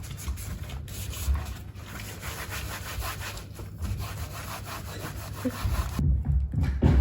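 Close, rapid rubbing and scratching noise of many quick strokes that cuts off about six seconds in, followed by a few low thumps.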